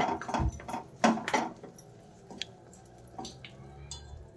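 Wooden spatula stirring lumps of jaggery around a stainless steel bowl: two scraping clatters in the first second and a half, then a few light taps. The jaggery is being melted down into syrup.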